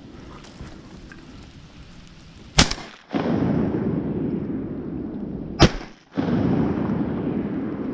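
Two shotgun blasts about three seconds apart.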